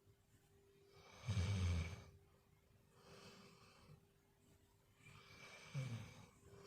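Dog snoring in its sleep: two loud, rough snores about four seconds apart, one about a second in and one near the end, with a softer breath between them.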